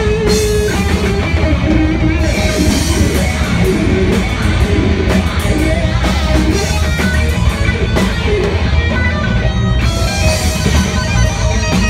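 Live death metal band playing loud: a fast, heavily distorted electric guitar riff over drums and bass, heard close to the guitarist.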